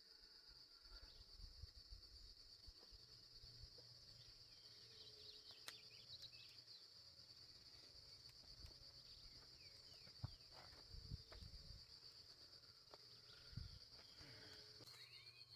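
Insects trilling steadily in a continuous high-pitched chorus, with faint bird chirps here and there and a few soft low knocks.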